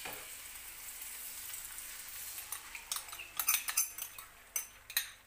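Beaten egg poured into hot butter with sliced mushrooms in a frying pan, sizzling steadily. From about three seconds in, a run of sharp clicks and taps, kitchen utensils knocking against the bowl and pan, as the sizzle dies down.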